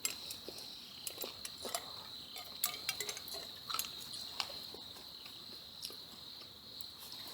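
Insects chirping in a steady high-pitched drone, with scattered small clicks and ticks over it.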